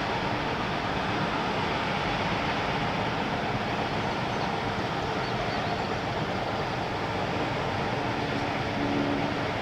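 Steam train hauled by a Shay geared locomotive (Cass Scenic Railroad #2) running, heard as a steady rushing noise with faint steady tones and no whistle.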